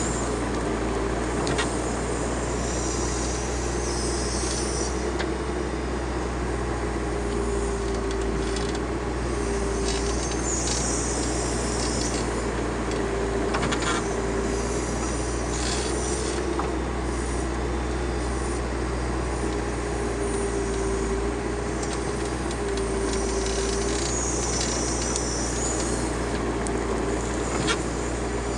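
Backhoe loader's diesel engine running steadily under work, with a mid-pitched whine that swells every few seconds and a few faint knocks.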